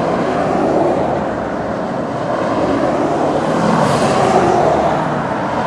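Lifted pickup trucks driving past one after another, their engines and tyres making a steady traffic noise with no pause between them.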